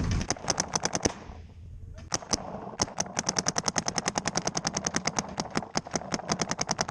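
Paintball marker firing rapidly: a quick string of shots, a pause of about a second, two single shots, then a steady stream of about ten shots a second.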